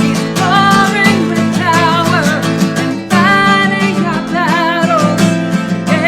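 Music: strummed acoustic guitar chords under a wavering melody line that is sung.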